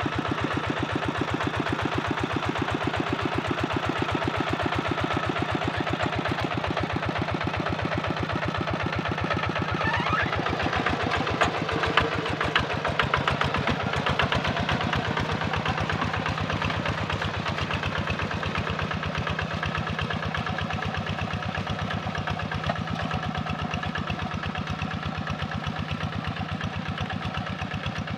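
Kubota RD 85 single-cylinder diesel engine on a two-wheel walking tractor, running steadily as the tractor works through flooded paddy mud, its firing beats fast and even.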